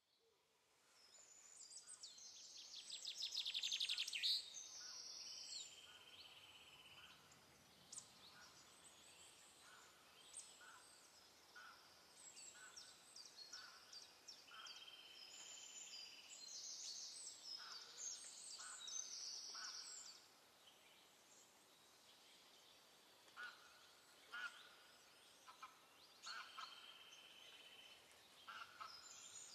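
Birds chirping and calling: a fast trill about three to four seconds in, then scattered chirps and several short steady whistled notes, each held for about a second.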